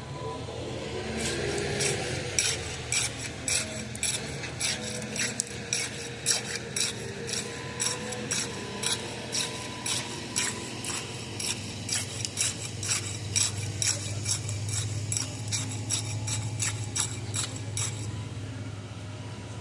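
Rapid, rhythmic scraping strokes of a hand tool working concrete, about two or three a second, with a steady engine running underneath.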